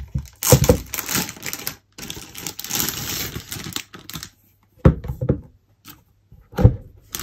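A sealed cardboard collector's box being opened by hand: its packaging rustling and tearing for several seconds, then a few sharp knocks as the box is handled.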